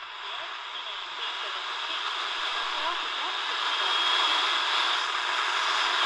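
Tecsun DR-910 portable radio's speaker hissing with shortwave static while tuned near 6.16 MHz, the noise swelling over the first few seconds, with faint wavering whistles in it and a thin steady whistle about four seconds in.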